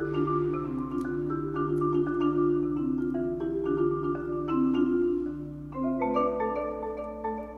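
Marimba played with four mallets: sustained rolled chords in the middle register over a held low note, then about six seconds in a quicker run of higher notes.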